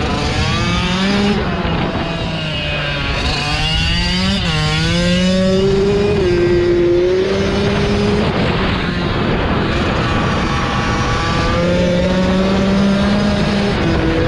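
Pit bike engine revving hard under way, its pitch climbing as it accelerates and dropping back at gear changes and off the throttle, several times over.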